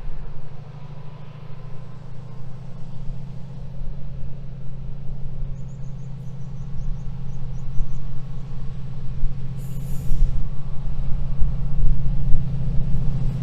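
DRS Class 68 diesel locomotive, with its Caterpillar V16 engine, working hard as it climbs toward the listener hauling a railhead treatment train. Its low steady engine drone grows louder as it approaches, with a brief hiss about ten seconds in.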